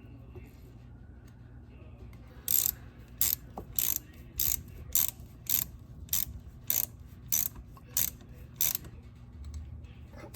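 Socket ratchet wrench being worked in short strokes: about ten quick clicking runs, evenly spaced a little over half a second apart, starting about two seconds in.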